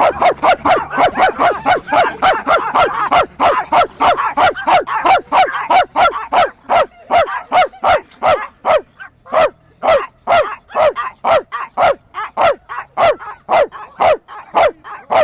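A dog barking non-stop in short, sharp barks, about four a second at first and slowing to two or three a second toward the end.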